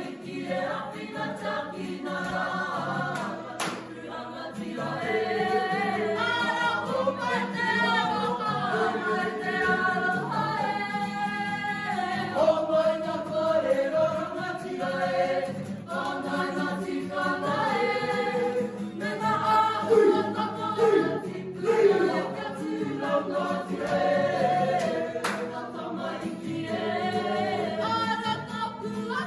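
A mixed group of voices singing a Māori action song (waiata-a-ringa) in unison, in held sung phrases, with guitar accompaniment.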